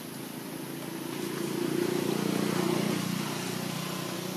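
A motor vehicle's engine passing by: a steady low drone that grows louder to a little past halfway, then slowly fades.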